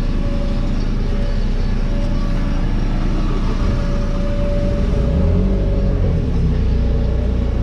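Engine running steadily, its pitch stepping up briefly about three and a half seconds in.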